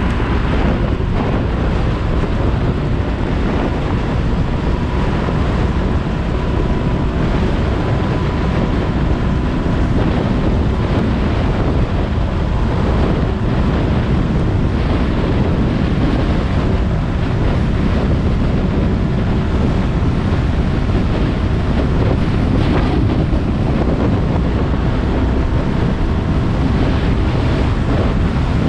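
Steady, loud wind rumble buffeting an action camera's microphone on a moving motorbike, with engine and road noise running underneath.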